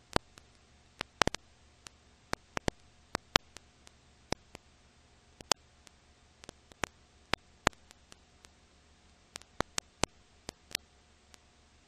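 Irregular clicks and pops over a low steady hiss and faint hum: the crackle of an old film transfer with no soundtrack of its own.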